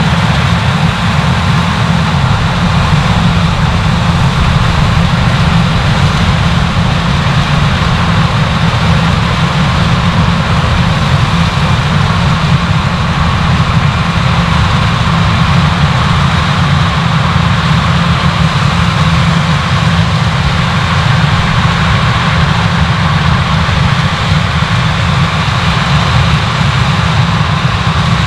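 Large diesel farm machinery running steadily under load: a heavy, unchanging low engine drone with broad mechanical noise over it.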